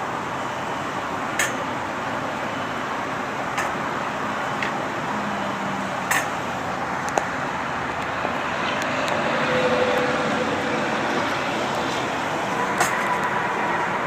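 Steady mechanical running noise, like an engine or traffic, with a few sharp clicks scattered through it.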